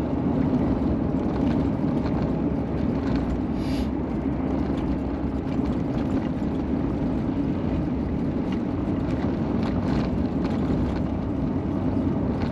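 Steady engine and tyre noise of a Chevrolet being driven on a snowy road, heard inside the vehicle as an even rumble.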